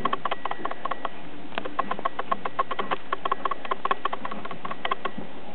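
Rapid, irregular light clicking and tapping as two chihuahua puppies scuffle in play, their paws and claws scrabbling, over a steady hiss.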